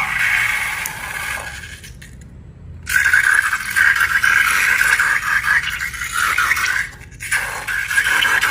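Scraping and rasping from slime-making, in stretches of a few seconds with a short break about two seconds in and a brief dip near seven seconds.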